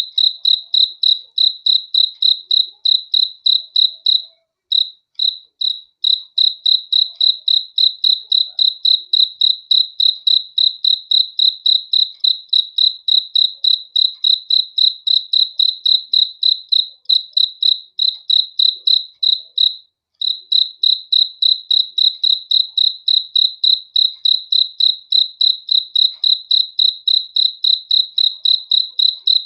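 A cricket chirping in a steady, even rhythm of about three high-pitched chirps a second, pausing briefly twice.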